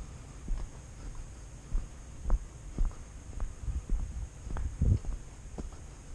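Footsteps of a person walking on a packed dirt road, low thuds about two a second.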